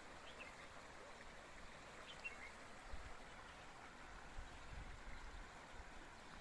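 Faint, steady rush of flowing spring water, with a couple of faint high chirps early on and a low rumble coming in about halfway through.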